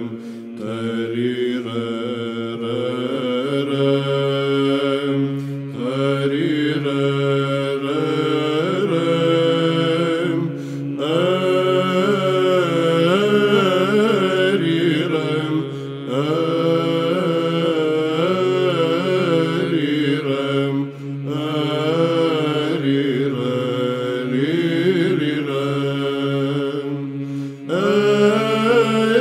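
Byzantine chant in the Romanian psaltic style: male chanters sing a melismatic kratima on the syllables 'te-ri-rem', over a steady low ison drone. The phrases are broken by brief dips about every five seconds.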